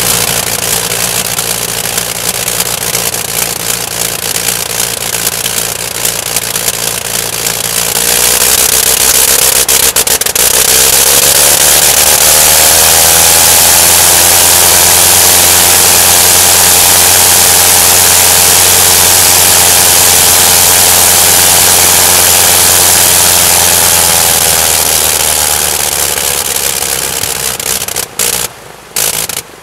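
Bentley BR.2 nine-cylinder rotary engine of a Sopwith Snipe running on the ground. About eight seconds in it rises in pitch to a loud full-power run-up, holds steady for about twelve seconds, then eases back down. Near the end the sound cuts out and back in a few times in quick succession.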